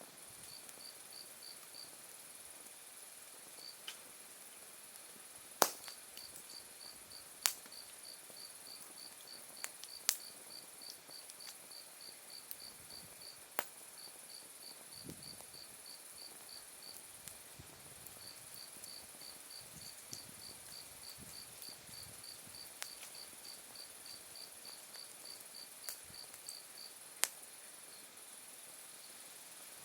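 Autumn insects calling: a steady high-pitched trill, and a cricket chirping about four times a second in long runs with short breaks. A handful of sharp pops and cracks from firewood burning in an open fire break through, spread out over the time.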